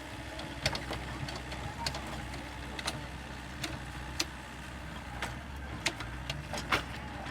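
A machine's engine running with a steady low hum, with irregular sharp clicks and knocks over it, about a dozen scattered through.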